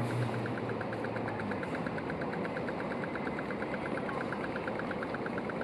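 Steady street traffic noise with a rapid, even high ticking, about five ticks a second, that starts about two seconds in.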